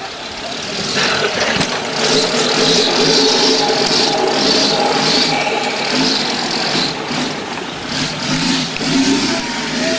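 Off-road 4x4's engine revving hard under load as it climbs out of a steep dirt gully, getting louder about a second in, its pitch rising and falling with the throttle.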